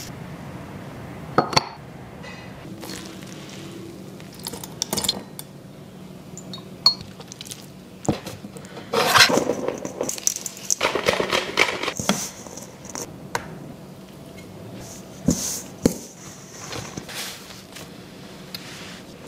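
Food-preparation sounds: scattered clinks and knocks of utensils against ceramic and glass bowls, with a denser rustling, clattering stretch in the middle as flour is poured and mixed in a bowl. Dough is worked with a blade on a wooden board.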